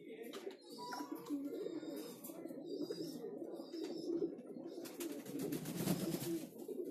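Racing pigeons cooing continuously, mixed with splashing and wing-flapping as they bathe in a shallow bowl of water. The splashing grows loudest about five to six seconds in.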